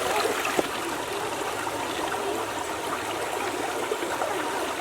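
River water flowing over rocks in a steady, even rush with small splashy trickles.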